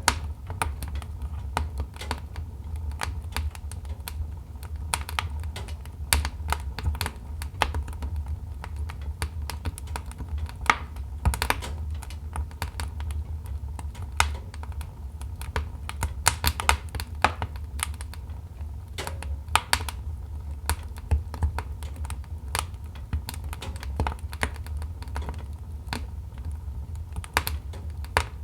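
Wood fire in a fireplace crackling: burning logs give off irregular sharp snaps and pops, several a second, over a low steady rumble of the flames.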